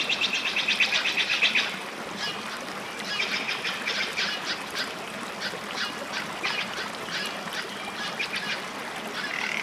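Rapid, high-pitched rattling animal calls in bursts, each a fast run of about ten ticks a second: one at the start, more around three to four seconds in and again near the end.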